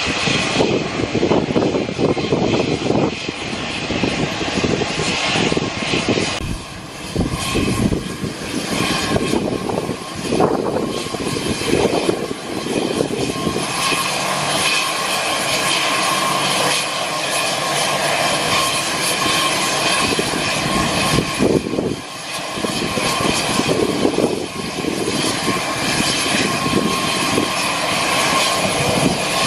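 Aircraft engines running steadily, a loud continuous noise with a steady high whine over it. The sound changes character about six and a half seconds in.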